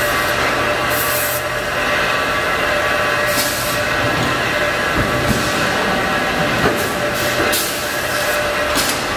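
Forge-shop machinery running at an electric screw press: a loud steady drone holding several steady tones, with a few metal knocks and clanks, most of them from about five seconds in, as the hot workpiece is worked in the dies.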